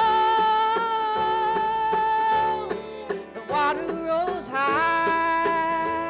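Live acoustic string-band music: a woman's voice holds a long sung note, then starts a new phrase a little after three seconds in, over plucked mandolin and upright bass.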